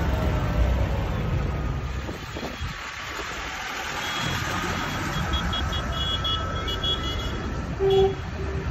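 Tractor engines running as a John Deere tractor passes close by and moves off, then more distant tractors coming along the road. Faint, rapid high beeping runs through the middle, and a short horn toot sounds near the end.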